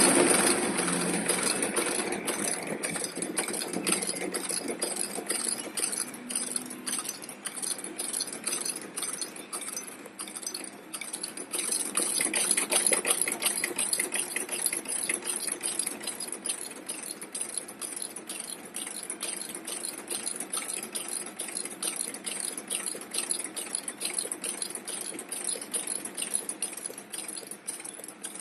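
Vertical inseam sewing machine for shoes running, its stitching mechanism clattering in a steady, rapid, even rhythm.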